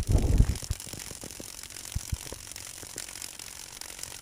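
Two small digital RC servos buzzing with irregular little ticks as they jitter around their neutral point, a fault that appears with the Orange 3-axis flight stabilizer in circuit. There is a low rumble of microphone handling in the first half second or so.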